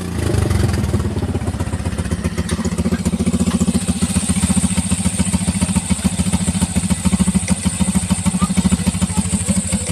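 Suzuki Shogun 125's single-cylinder two-stroke engine, breathing through a Keihin 28 mm carburettor with an open air filter, idling steadily with an even, rapid pulse just after a rev.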